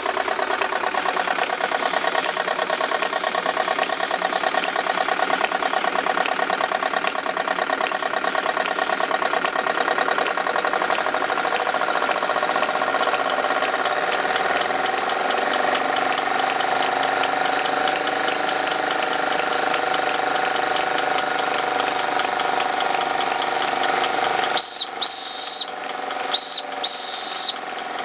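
Electrically heated Wilesco D22 model steam engine running steadily, driving line shafting and belt-driven model tools, with a fast even clatter and whir. About three-quarters of the way through, its steam whistle gives a few short high toots.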